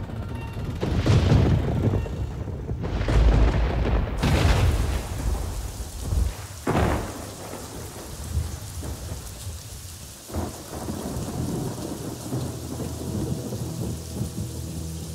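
Thunder rumbling, with several heavy rolls in the first four seconds. Then steady rain sets in, with sharp thunderclaps about seven and ten seconds in.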